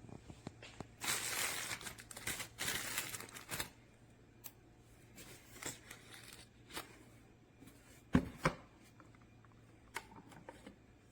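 Handling noise: two bursts of rustling in the first few seconds, then scattered light clicks and two sharp knocks about eight seconds in.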